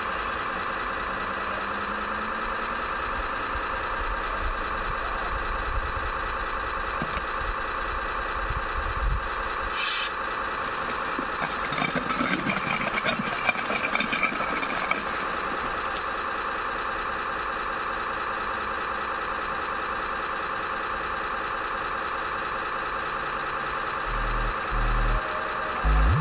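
Scale RC Cat 966M wheel loader running with a steady engine drone. About halfway through there are a few seconds of rattling and scraping as gravel is loaded. Music comes in near the end.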